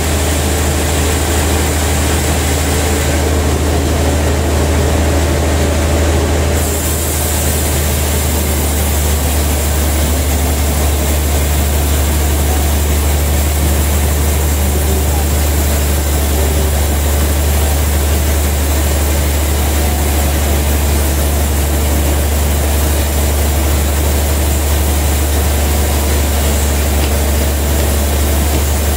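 Large band sawmill running and sawing through a big trembesi log: a steady, loud low drone from the machinery with an even hiss of the blade in the wood. The hiss turns a little brighter about six seconds in.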